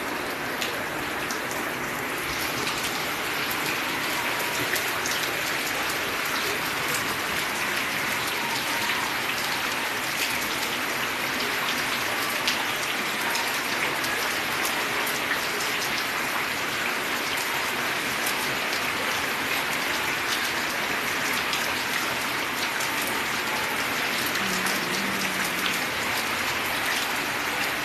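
Steady rain: an even hiss dotted with many sharp individual drop hits.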